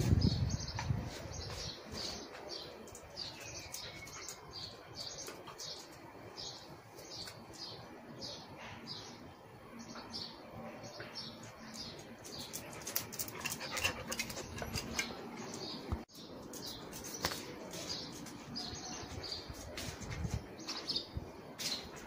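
Small birds chirping in quick, repeated short notes throughout, after a low thump at the very start.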